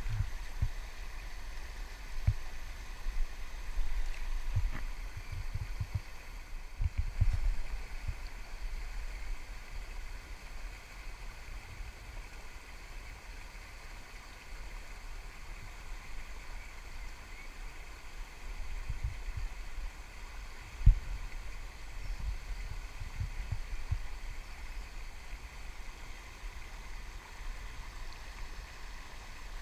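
River water running over a small weir, a steady rushing, with occasional low thumps on the microphone, the strongest about 21 seconds in.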